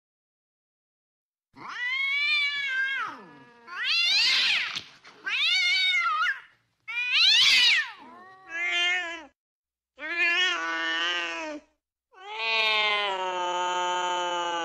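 Cat caterwauling in the yowls of mating: about seven long, drawn-out calls that rise and fall in pitch, starting about a second and a half in. The last call is the longest, held for over three seconds.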